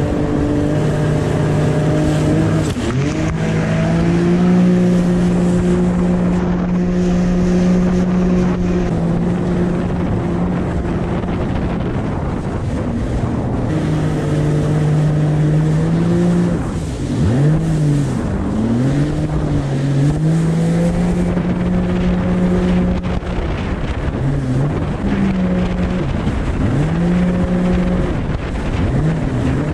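Jet ski engine running under way over the rush of water, its note steady at first, then dropping and climbing back several times in the second half as the throttle comes off and on.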